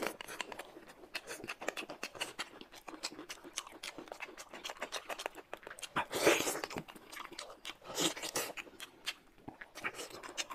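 Close-miked eating: wet chewing with rapid mouth clicks and smacks as a roast chicken leg is bitten and chewed, with two louder noisy bites or slurps about six and eight seconds in.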